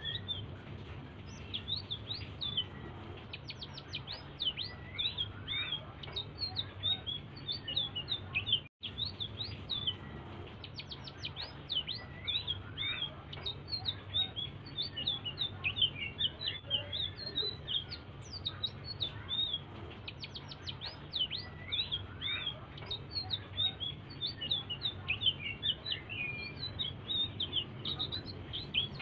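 Songbird known to Indonesian bird keepers as 'selendang biru' singing soft, continuous chatter. It is a rapid string of high, thin chirps and trills with quick up-and-down sweeps, broken by a momentary cut about nine seconds in.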